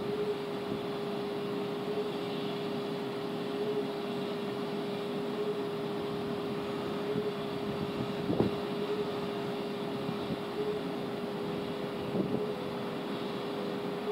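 Railway station platform ambience: a steady electric hum with a faint regular pulse every second and a half or so, over an even rumble. Two short knocks sound about eight and twelve seconds in.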